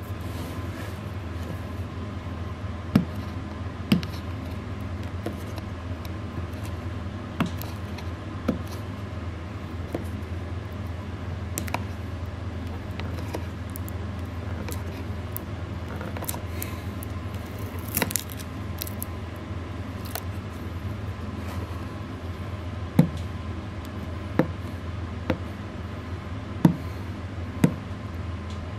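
Cardboard speaker box being handled and opened: scattered sharp clicks and taps, more of them near the end, over a steady low hum.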